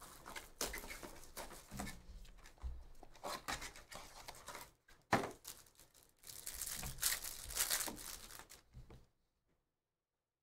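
The plastic wrapper of a pack of football trading cards being torn open and crinkled by hand, with rustling of the wrapper and cards between the tears. The sound cuts off suddenly about nine seconds in.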